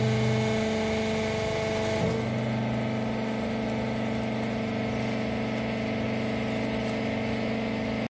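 Rag baler machine running with a steady mechanical hum; about two seconds in the hum changes as some of its tones drop out, then it runs on steadily.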